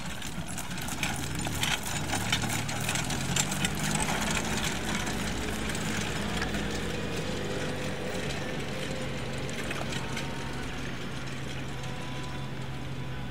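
A harness pony trotting on grass with a driving carriage: hoof beats and carriage rattle, sharpest in the first few seconds. Underneath, a vehicle engine runs steadily from about three seconds in.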